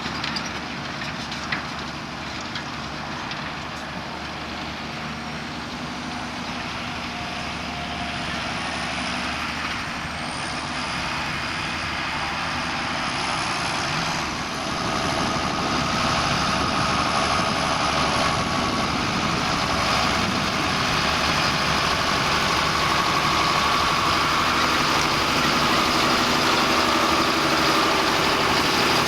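John Deere 6930 tractor's diesel engine running steadily under load while pulling a four-furrow plough through grassland. It grows louder about halfway through, as the tractor comes closer.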